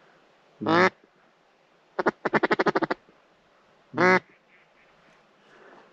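Duck call blown in quacks: one long quack, a quick run of about ten short quacks, then another long quack.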